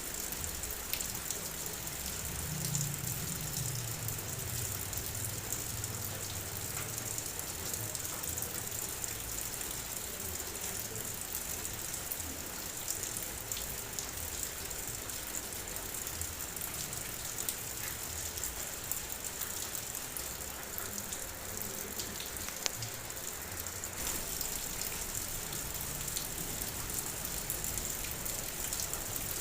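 Steady heavy rain: an even hiss with scattered individual drops ticking, and a faint low rumble a few seconds in.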